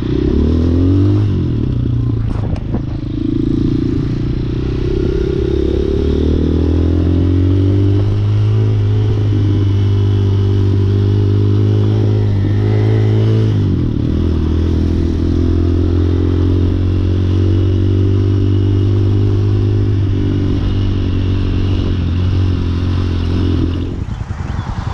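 Hawk 250 dual-sport motorcycle's single-cylinder four-stroke engine pulling away and running under way, heard from the rider's seat. The engine note climbs in the first seconds, dips briefly and picks up again about halfway through, and falls away just before the end.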